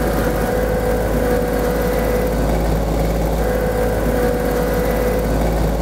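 Kioti CS2610 compact tractor's three-cylinder diesel engine running steadily at raised revs while the front loader is worked, with a steady whine over the engine that fades for about a second in the middle.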